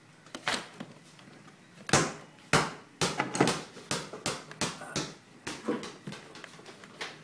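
A string of about a dozen sharp knocks and clinks at an uneven pace, some ringing briefly: hand tools and fasteners striking metal while engine-bay parts are taken off.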